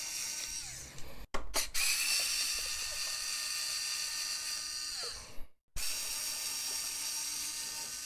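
Cordless electric screwdriver whining steadily as it backs out the bottom-plate screws. It runs in three stretches, stopping briefly about a second in and again about five and a half seconds in, and its pitch sags as each run winds down.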